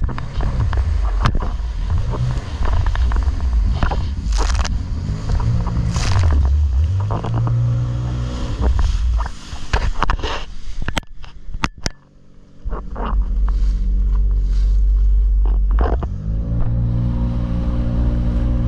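Jet ski engine running under way, its pitch rising and falling with the throttle, over heavy wind buffeting on the microphone and rushing spray, with scattered knocks and scrapes from the camera being handled. About twelve seconds in the sound drops away for a moment, then the engine note climbs back up and holds steady.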